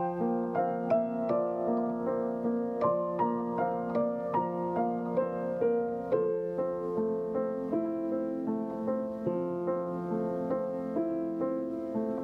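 Solo piano played with both hands: a slow, unhurried melody over sustained chords. The note attacks grow softer and sparser in the second half.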